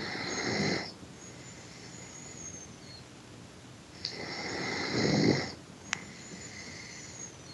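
A person snoring: one long snore ends about a second in, and another starts about four seconds in and lasts about a second and a half. Each snore has a high whistling tone over the low rasp, building up and then stopping abruptly. A single sharp click comes just after the second snore.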